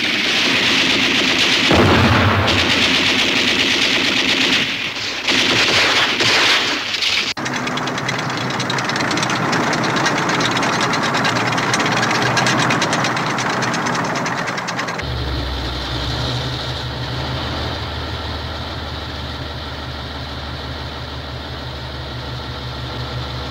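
Film battle sound: blasts and rumbling over the first several seconds, then a tank engine running with a dense, fast rattle. About two-thirds of the way through it changes to a steady low engine drone.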